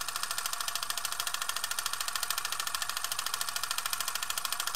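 Film projector running: a rapid, even mechanical clatter as the film is advanced.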